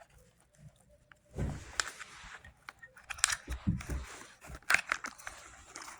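Hard plastic vacuum-attachment parts being handled: scattered clicks, knocks and scraping, with a dull thump about a second and a half in.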